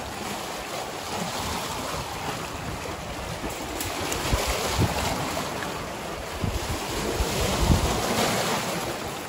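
Wind blowing across the microphone, with stronger gusts about halfway and near the end, over lake water washing against a rocky shore.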